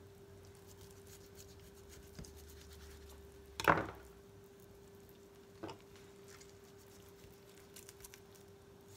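Faint handling of a raw chicken leg quarter being cut apart at the joint: soft knife and skin rustles, then one loud knock a little under four seconds in as the knife is set down on the plastic cutting board, and a smaller click about two seconds later. A steady faint hum runs underneath.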